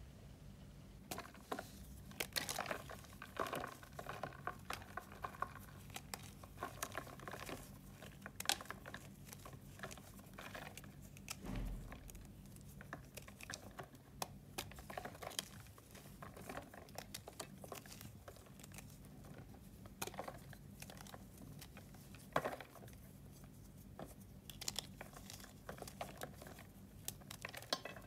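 A reformed chalk block being broken and crumbled by fingers: a dense, irregular run of dry crunches and crackles as chunks snap off and powdery pieces fall.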